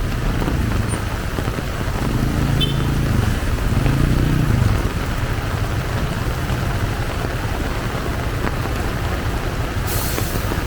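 Heavy rain falling steadily, with a motor vehicle's engine passing close by about two to five seconds in.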